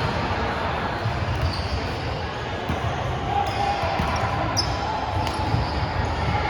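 Indoor volleyball game: ball thumps in a large, echoing sports hall, with players' voices in the background.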